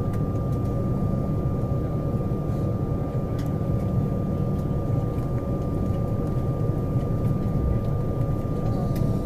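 Cabin noise of an Embraer 190 airliner taxiing with its General Electric CF34 turbofans at idle: a steady low rumble with a thin steady whine running through it, and a few faint rattles.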